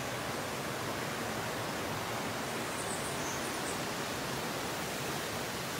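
Steady rushing water, like a waterfall, with a few faint high chirps about three seconds in.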